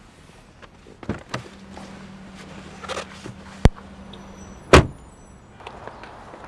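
Car door worked from inside the cab: a series of clicks and knocks, a sharp snap, then the door shut with a heavy thump about three-quarters of the way in.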